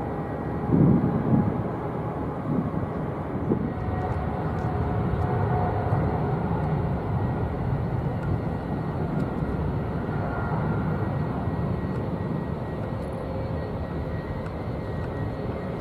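A Boeing 777-200LR's twin GE90 turbofans at takeoff power, a steady rumble with a thin high whine, as the airliner rolls down the runway and climbs out. The sound is briefly louder about a second in.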